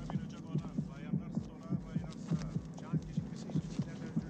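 Heartbeat sound effect in a film score, beating fast and steady in paired lub-dub thumps, about 100 beats a minute, standing for a racing pulse of fear.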